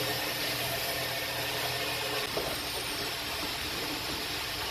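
Self-service car wash's high-pressure pump and spray wand running, giving a steady hissing rush of water spraying onto a car's wheel. A low hum sits underneath for about the first half.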